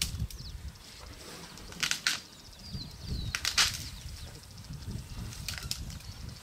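African elephants stirring up dry dust and dirt with their feet and trunks: four short rasping whooshes, the loudest about halfway through. Faint bird chirps are heard between them.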